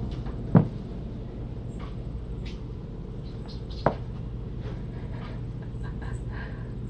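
Room tone with a steady low hum, faint scattered rustling and ticking, and two sharp knocks, one about half a second in and one about four seconds in.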